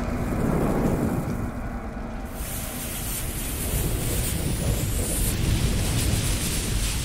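Intro sound effect of a lit bomb fuse: a low rumble under a crackling hiss that comes in about two and a half seconds in and builds toward the blast.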